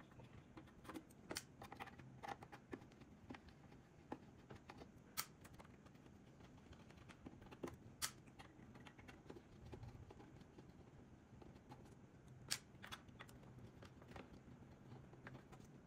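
Near silence with sparse faint clicks and small metallic ticks of a small screwdriver turning screws out of a metal audio-component chassis, a few clicks standing out.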